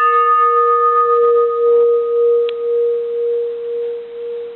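Bronze Japanese Buddhist temple bell ringing on after a strike from a wooden striker. It holds one steady, slowly pulsing hum whose brighter overtones die away over about three seconds while the hum rings on. A faint click comes about halfway through.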